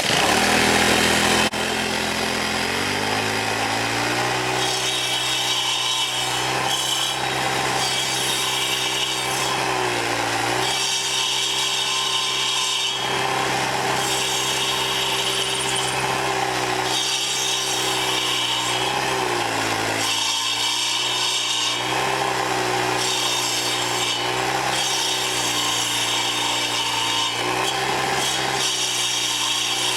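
Troy-Bilt sidewalk edger's small gas engine speeding up over the first few seconds, then running hard as its carbide-tipped saw blades grind into a cedar stump. A gritty rasp of cutting comes and goes over the engine, and the engine pitch sags briefly about every ten seconds as the blades bite under load.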